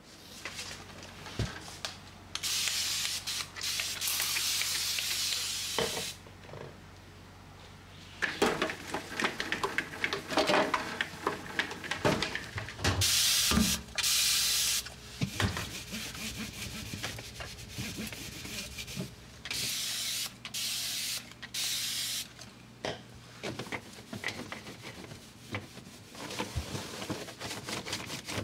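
Hands-on household work: hissing that lasts a few seconds at a time, three times, among rubbing, clicks and clatter of things being handled, over a low steady hum in the first half.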